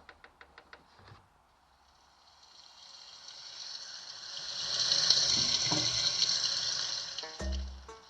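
A rushing hiss that swells up over a few seconds and then fades, between the end of one children's song and the start of the next. Music starts again near the end.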